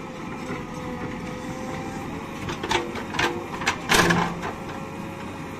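JCB 3DX backhoe loader's diesel engine running steadily with a thin steady whine while the rear bucket digs a trench, with several short knocks and scrapes between about two and a half and four and a half seconds in, loudest near four seconds, as the bucket pulls out of the ground loaded with soil.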